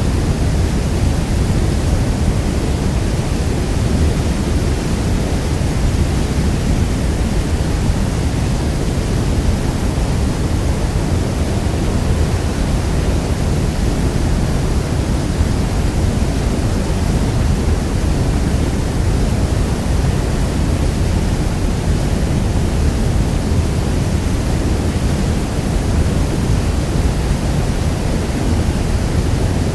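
Niagara Falls waterfall: a steady, loud roar of falling water, deepest in the low end, with no breaks or changes.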